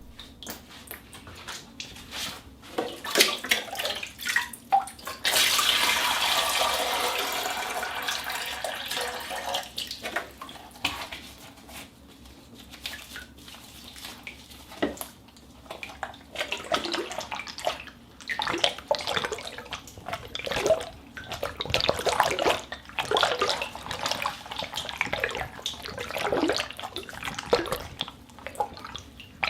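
Rubber gloves worked to make a fish-schooling sound effect: a stream of irregular wet squelches and splashy flicks, with a longer continuous rush from about five to ten seconds in.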